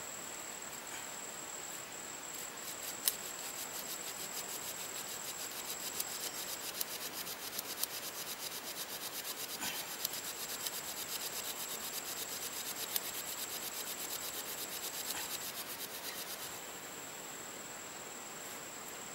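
Friction fire-making: a wooden stick rubbed hard and fast back and forth against a soft, dry wooden board, a rapid, even rasping that starts about two seconds in and stops a couple of seconds before the end. A steady high insect trill, typical of crickets, runs underneath.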